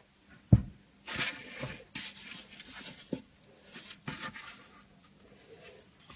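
Handling noise: one sharp knock about half a second in, then several short bursts of rustling and scraping with a few lighter knocks.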